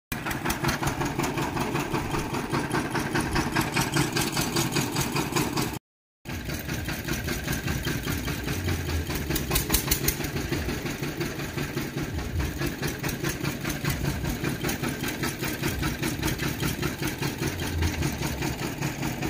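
Engine of a roadside sugarcane juice crushing machine running steadily with a rapid, even beat, with a short break about six seconds in.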